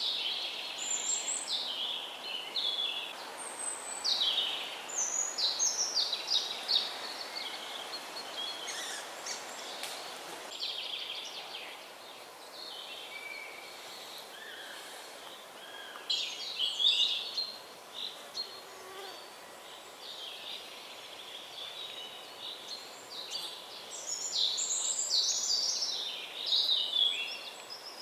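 Several songbirds singing in a forest, overlapping quick, high chirping phrases that come in bouts, busiest near the start, around the middle and near the end, over a faint steady background hiss.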